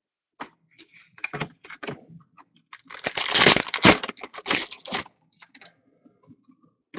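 Trading cards and their packs being handled: a run of sharp clicks and snaps, with a denser stretch of scraping, crinkling noise lasting about two seconds near the middle.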